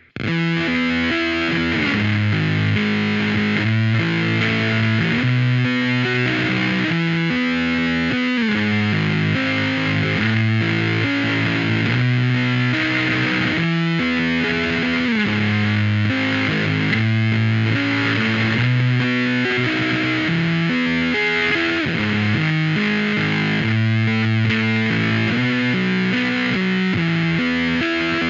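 Electric guitar played through distortion and effects pedals, starting abruptly and then holding sustained notes and chords that change about every second, with a few sliding notes.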